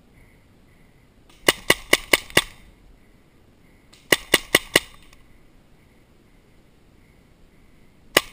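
Paintball marker firing quick strings of sharp shots: five in a row, then four more a couple of seconds later, and another single shot at the very end.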